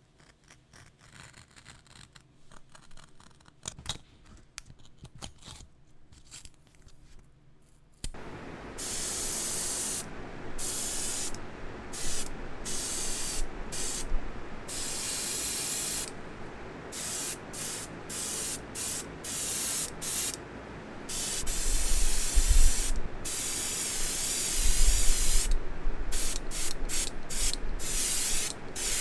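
Faint scratching of a hobby knife trimming masking tape, then, about eight seconds in, an airbrush hissing as it sprays paint in repeated bursts, cutting off and starting again many times as the trigger is worked.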